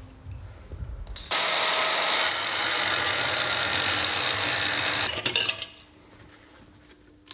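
A power tool running steadily for about four seconds. It starts about a second in and stops abruptly, followed by a few light clicks and rattles.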